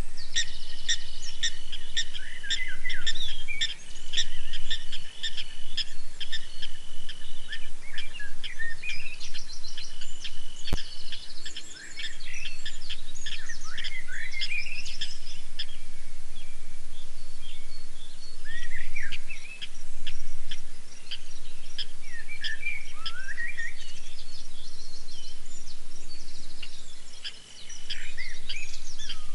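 A busy night chorus of high calls: quick chirps, whistled notes that sweep downward, and long held high tones. From about four to eleven seconds in, a run of calls pulses about three times a second, and a single sharp click sounds near the end of that run.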